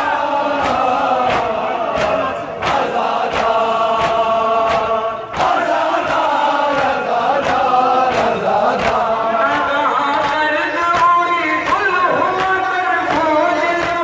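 Noha, a Shia lament, chanted by a group of men following a reciter on a microphone, over a steady beat of hands striking chests in matam.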